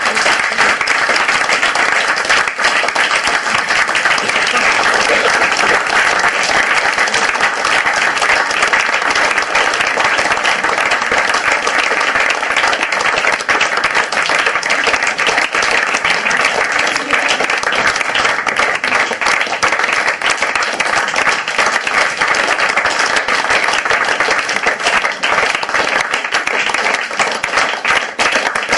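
Audience applauding, many hands clapping at once, breaking out suddenly and holding at an even level.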